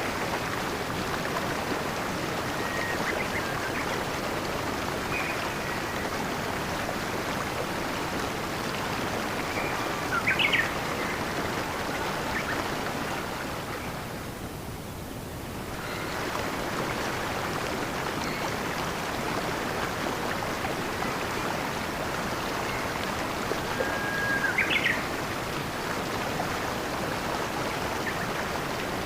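Steady rush of flowing stream water with a few short bird chirps now and then, the clearest about a third of the way in and near the end. The water sound dips briefly about halfway through.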